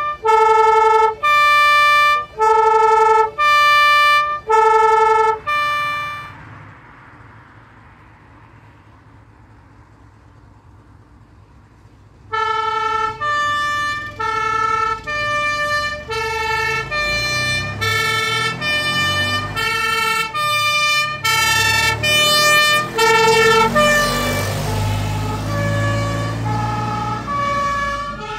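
Fire engine's two-tone siren alternating between a low and a high note; it stops about six seconds in, leaving only a low rumble. The siren starts again about twelve seconds in, louder as the truck's engine rumble comes up under it, and near the end its pitch slides down as the truck passes and drives away.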